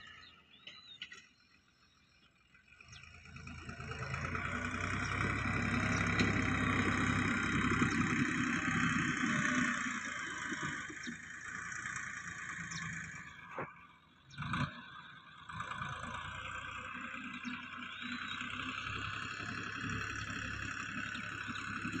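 Bull Power farm tractor's diesel engine running under load as it pulls a tine cultivator through dry soil. It is faint at first and grows louder from about three seconds in, then runs steadily, with a short sharp knock a little past the middle.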